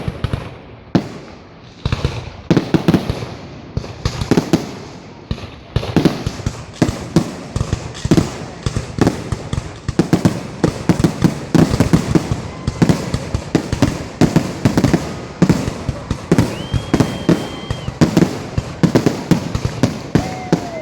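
Fireworks going off in a rapid barrage of loud bangs and crackling reports, several a second with no let-up. In the last quarter, a steady high whistle sounds for about a second and a half.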